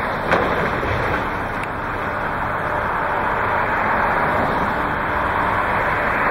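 Excavator's diesel engine running steadily as its demolition grapple works at a wood-frame house, with two sharp cracks of breaking wood, about a third of a second in and again at about a second and a half.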